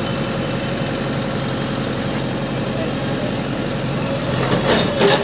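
JCB 3DX backhoe loader's diesel engine running steadily with an even low drone.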